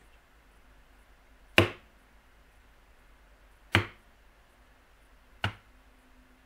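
Three sharp strikes of a mallet on a thin flat leather stamping punch, driving an impression into tooling leather, about two seconds apart and each a little quieter than the last.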